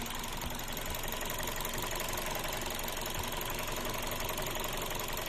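2003 Toyota Vios four-cylinder engine idling steadily, with a few faint, irregular low thumps in its running. This is the engine with the misfire being diagnosed.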